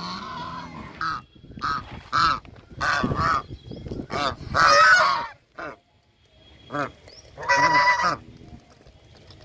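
White domestic geese honking repeatedly: a string of about a dozen short and longer honks, the loudest and longest about halfway through and again near the end.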